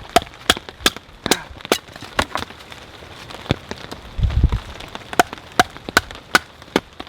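Knife chopping small sticks of wet firewood into kindling: a run of sharp strikes, about two to three a second, a pause in the middle with one low thump about four seconds in, then the strikes resume.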